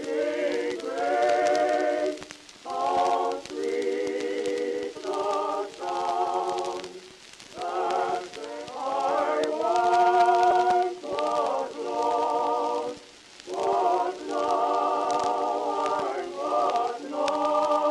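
Background music: a choir singing held chords with a wavering vibrato, in phrases of about a second or two each, with short breaks between them.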